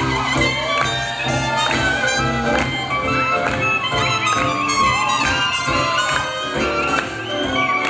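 Live swing jazz band playing an up-tempo number, horns leading with bending phrases over a steady rhythm section.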